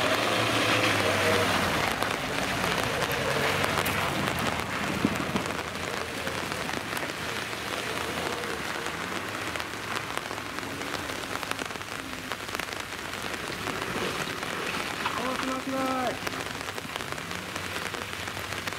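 Steady rain falling on a nearby surface, a dense hiss of fine drop ticks. A low engine note dies away in the first second or two.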